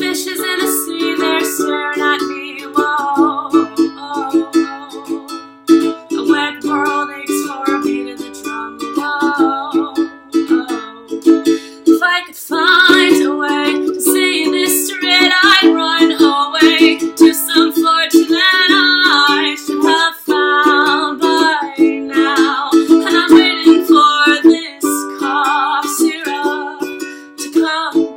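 Ukulele strummed in a steady rhythm with a singing voice over it, the voice strongest from about halfway through.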